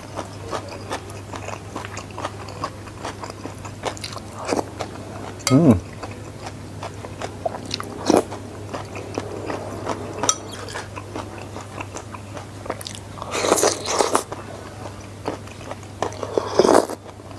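Close-miked chewing and crunching of food, with slurps from a spoon of sayur asem soup about eight seconds in and again near the end. A short falling hum comes about five seconds in.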